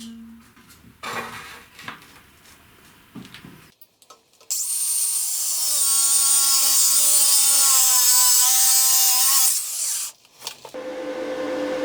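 A few light knocks and handling sounds, then a power tool runs for about five seconds, grinding or sanding with a hiss and a motor pitch that sags slightly under load. It stops, and near the end a motor starts again with a steady hum that grows louder.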